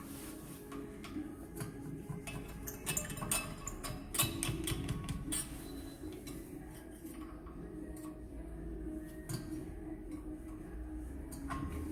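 Light metallic clinking and rattling of tools and brake parts, densest a few seconds in, over a steady low hum.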